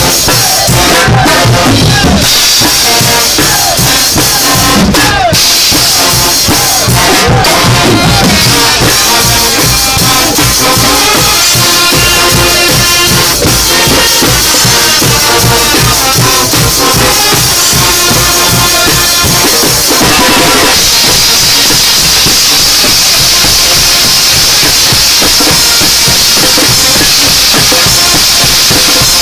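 Street percussion band drumming loudly: drum kits and silver-shelled drums beat a fast, driving rhythm under crashing cymbals, and the cymbal wash grows brighter about two-thirds of the way through.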